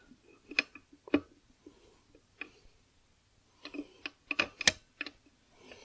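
Irregular light clicks and knocks of Vespa smallframe engine parts being handled and test-fitted during assembly, a dozen or so, sparse at first and busier in the second half.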